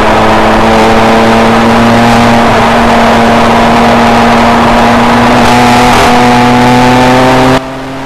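2007 BMW 335i's N54 twin-turbo inline-six pulling hard and accelerating at high speed, heard from inside the car over wind and road noise. Its pitch climbs slowly and steadily, and the sound drops sharply in level near the end.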